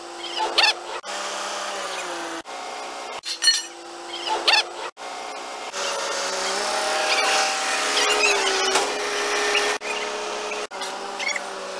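Truck-mounted crane's engine and hydraulics whining steadily as it lowers a load, the pitch shifting up and down several times, with a few short high squeaks. The sound breaks off abruptly at several points.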